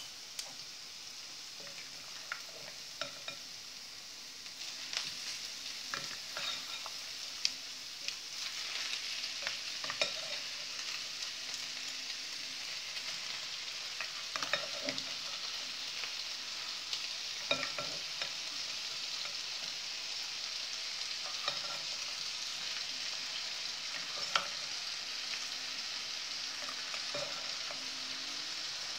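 Marinated chicken wings sizzling as they are spooned into a hot frying pan of sautéed onion; the sizzle grows louder after about four seconds as more chicken goes in. Scattered clicks and scrapes of a serving spoon against the bowl and pan.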